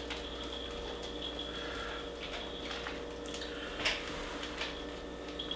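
Chopped walnuts shaken from a small jar onto a cake, giving a few faint, scattered ticks over a steady low room hum.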